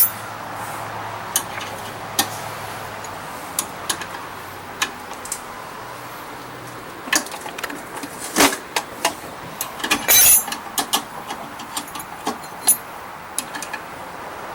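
Irregular sharp clicks and light clinks from hand work on the snow blower, over a steady low hiss; the loudest come about 8 and 10 seconds in.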